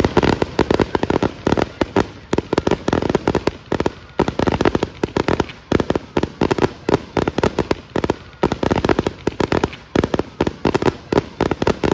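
Aerial fireworks barrage: many shells bursting in rapid succession, several loud bangs a second without a break, cutting off suddenly at the very end.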